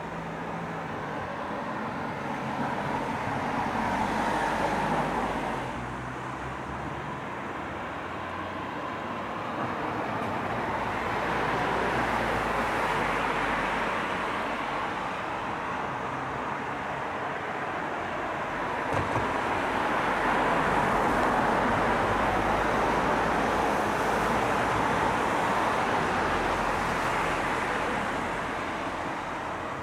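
Road traffic: vehicles passing, the rush of tyres and engines swelling and fading several times.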